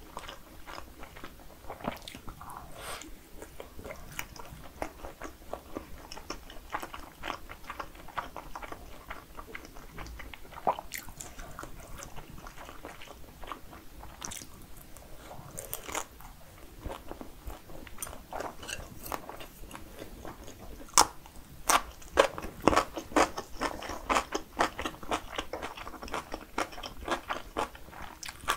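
Close-miked biting and chewing of a skin-on sausage, its casing crunching between the teeth in many short clicks. A cluster of louder sharp clicks comes about three quarters of the way through.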